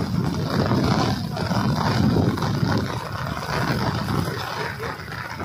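Steady rushing noise of heavy rain.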